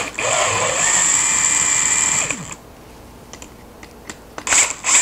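DeWalt cordless drill/driver running for about two and a half seconds as it backs a screw out of the ceiling fan's top collar, then a second short run near the end.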